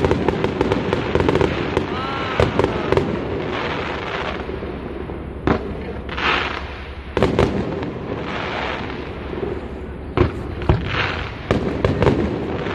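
Fireworks display: a rapid run of crackling pops, a brief whistle about two seconds in, then several loud bangs of bursting shells a second or two apart, each followed by a hissing crackle.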